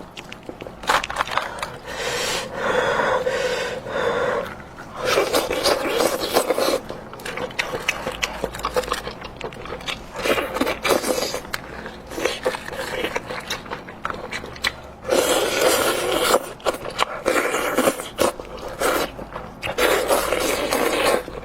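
Close-miked eating sounds of someone chewing and gnawing meat from a spicy goat head, with many sharp wet clicks and smacks in irregular runs.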